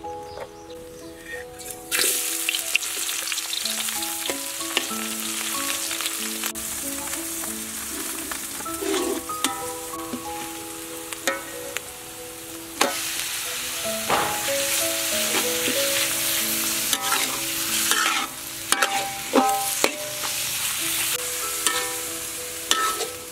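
Hot oil in a wok bursts into a loud sizzle about two seconds in as chopped garlic and onion hit it. The sizzle continues while a metal spatula scrapes and clacks against the wok as the aromatics are stirred.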